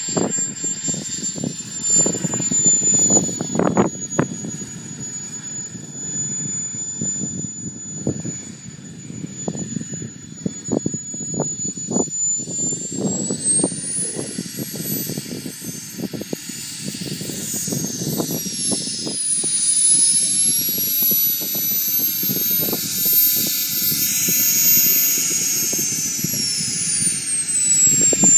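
Jet Central Rhino model turbine in a Comp ARF Typhoon jet whining at low power as the model lands and taxis; the high whine rises in pitch about halfway through, dips, rises again and falls back near the end. Gusty wind rumbles on the microphone.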